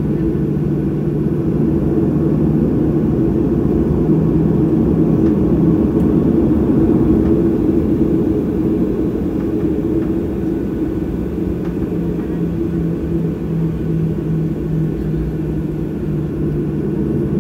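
Cabin noise of a Boeing 737 taxiing after landing: the jet engines at taxi power give a steady low rumble and hum. It swells slightly a few seconds in, then eases.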